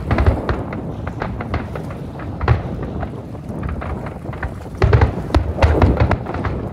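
Fireworks shells bursting: a string of deep booms and sharp cracks, with a loud boom at the start, another about two and a half seconds in, and a dense run of bangs about five to six seconds in.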